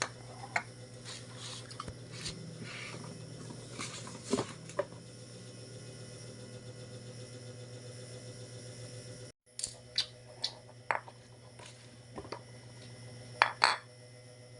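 Stackable glass jars and their lids being handled: scattered light clicks and knocks over a steady low hum, with a louder pair of clicks near the end.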